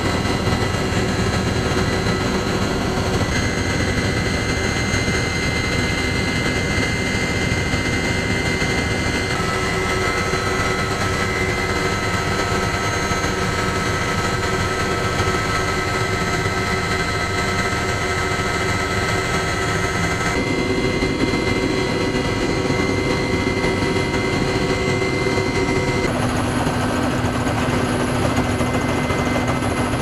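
Helicopter in flight heard from inside its cabin: a steady loud din of turbine and rotor with constant whining tones, which changes abruptly a few times.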